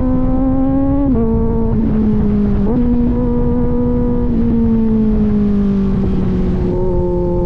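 Kawasaki Z900's inline-four engine running at high revs through an aftermarket AR exhaust under way. Its pitch drops about a second in, jumps back up near three seconds, then eases down in steps toward the end.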